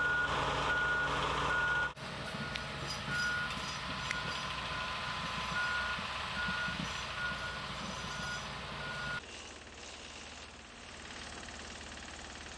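Reversing alarms on heavy rail-maintenance machinery beeping in a steady series over diesel engine rumble. About nine seconds in, the beeping stops and only a quieter steady engine sound is left.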